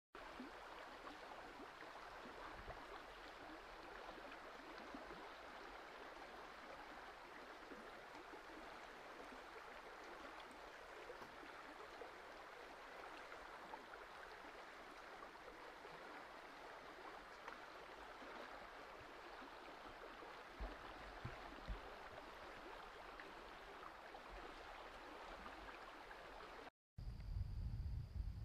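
Rocky stream rushing over riffles, a steady faint wash of water. Near the end it cuts out briefly and gives way to a different sound with a low rumble.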